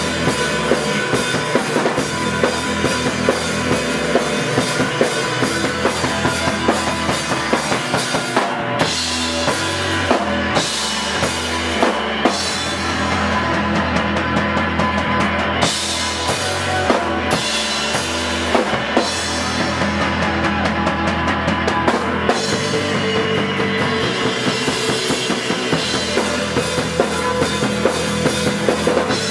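Live rock band playing electric guitar, bass guitar and drum kit, the drums keeping a steady beat.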